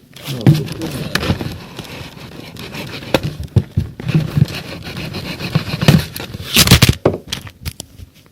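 Video camera falling over and being fumbled with: a run of clattering knocks and rubbing handling noise right on the microphone, with a loud cluster of knocks about six and a half seconds in.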